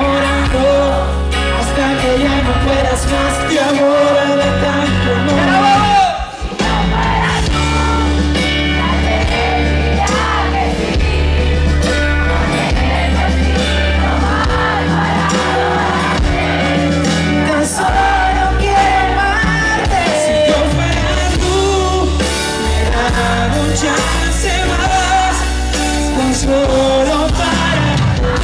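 Live band with drums, bass and electric guitars playing a pop song, with singing over it and a brief break in the music about six seconds in.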